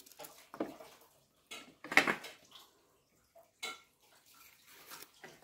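A kitchen knife slicing green chillies held in the hand, the cut pieces dropping into a plastic bowl: short, irregular clicks and taps, the loudest about two seconds in.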